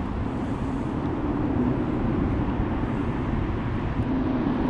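Steady low rumble of distant motor noise, even throughout with no distinct events.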